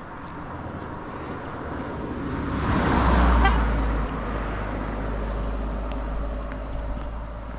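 A car overtaking on a road, its tyre and engine noise swelling to a peak about three seconds in as it passes close by, then a low engine rumble as it drives on ahead up the hill.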